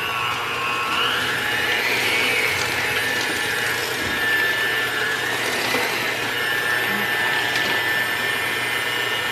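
Electric hand mixer beating thick cookie dough in a stainless steel bowl: a steady motor whine whose pitch rises a little in the first couple of seconds, then sags and settles as the beaters work through the dough.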